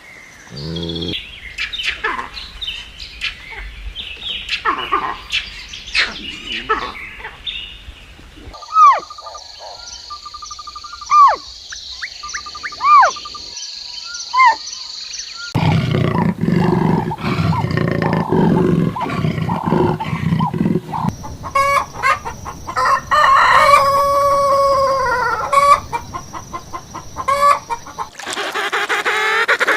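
A run of different animal calls cut abruptly one after another, several seconds each, mostly birds, with chicken or rooster sounds among them.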